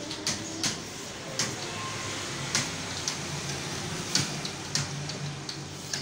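Computer keyboard keys clicking irregularly as someone types, with a few keystrokes much louder than the rest, over a steady low hum.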